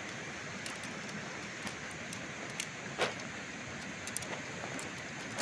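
Shock-corded tent pole sections clicking together as they are unfolded and joined, several sharp clicks with the loudest about three seconds in, over a steady rushing background noise.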